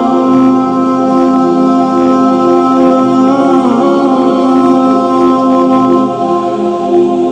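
Background music: unaccompanied voices singing long held notes, with a slight pitch shift about three and a half seconds in.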